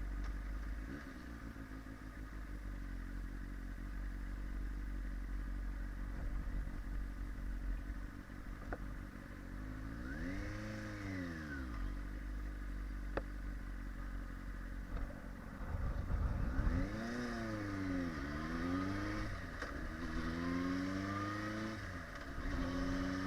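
Motorcycle engine running at low revs, then a brief rise and fall in revs about ten seconds in. From about sixteen seconds in the revs climb and drop several times, as in pulling away through the gears, and end in a steady climb.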